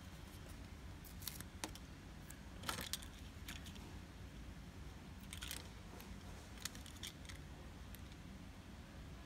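Faint crackle and rustle of a paper-backed sticker being peeled off and pressed onto a small plastic toy car, with scattered short clicks as the fingers handle the plastic.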